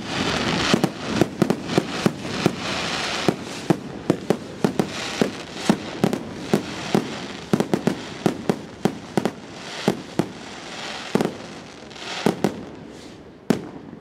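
Aerial fireworks bursting overhead: a rapid, irregular string of sharp bangs, often several a second, over a steady hiss from the burning stars.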